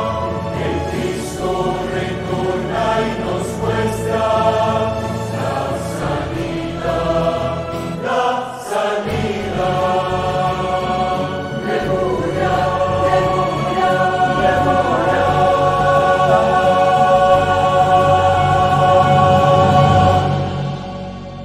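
A choir singing a slow devotional song, ending on a long held chord that fades out near the end.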